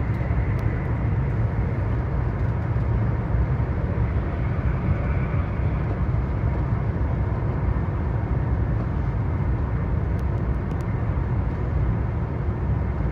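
Steady low rumble and running noise of a vehicle in motion.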